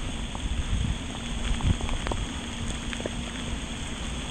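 Steady rain falling on pond water and grass, with scattered sharp ticks of drops and a low, fluctuating rumble on the microphone.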